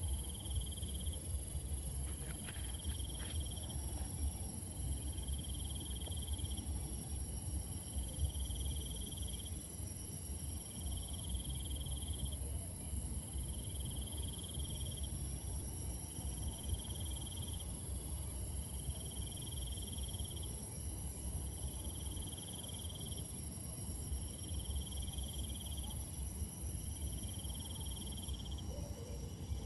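Night insect chorus: a steady high-pitched trill, with a second call pulsing about every one and a half to two seconds, over a low rumble.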